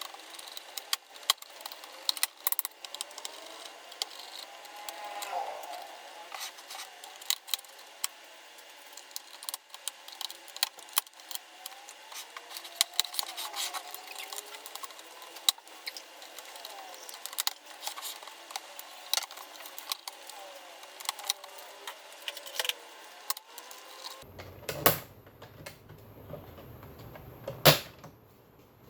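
Irregular small clicks, taps and rattles of hands and a tool working on a desktop computer's casing and internal parts, with a louder knock near the end.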